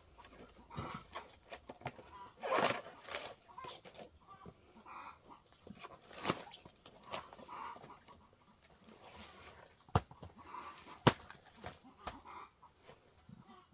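Chickens clucking on and off, with two sharp knocks about a second apart late on.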